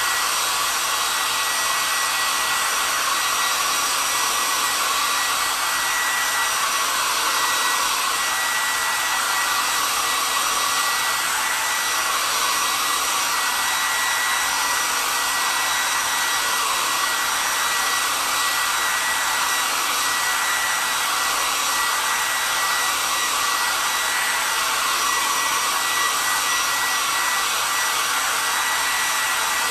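Handheld hair dryer running steadily on the blow setting, a rush of air with a constant high whine over it, drying freshly applied chalk paste on a sign board.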